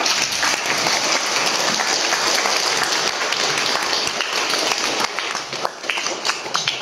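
Audience applauding: many people clapping, dense at first and thinning into more separate claps toward the end.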